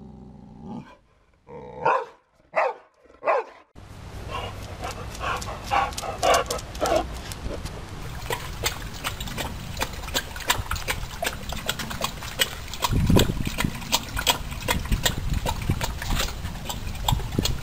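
Boxer dog grumbling low, then giving a quick run of short, loud barks about two seconds in. Softer yelps follow, then a long stretch of close clicks and knocks.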